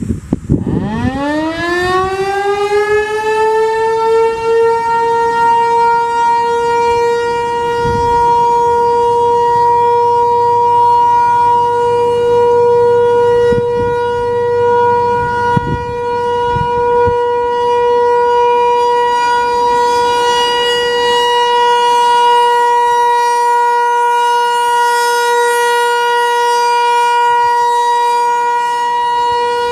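American Signal T-128 outdoor warning siren sounding the steady Alert signal for a monthly test. It winds up from a standstill over the first few seconds, rising in pitch, then holds one loud steady tone.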